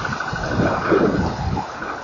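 Wind buffeting an outdoor wildlife camera's microphone, an uneven low rumble that swells about halfway through, with a faint steady pulsing tone above it.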